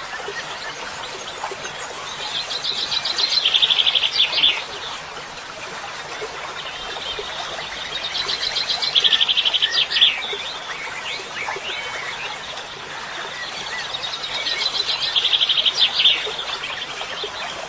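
Birds chirping throughout. Three times, a bird sings a rapid trill that swells in loudness for about two seconds and ends in a few sharp notes.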